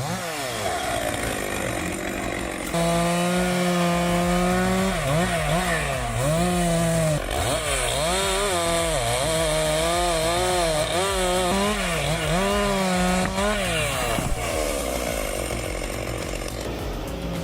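Chainsaw cutting through tree roots, its engine running at high revs, then repeatedly dipping in pitch and picking back up as the chain bites in and frees, for most of the time.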